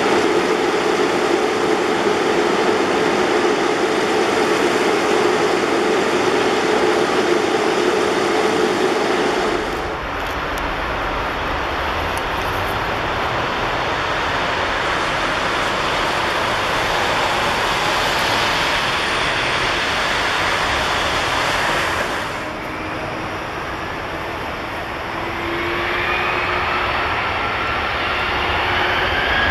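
De-icing truck spraying fluid onto an aircraft wing over a steady engine hum. This cuts off abruptly to a Boeing 767-300ER's jet engines running on the runway, their whine rising near the end as they spool up.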